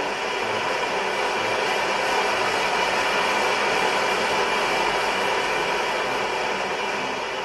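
BULIN BL100-T4 multi-fuel stove's pressurised burner running on kerosene, a steady hiss as the flame is turned down.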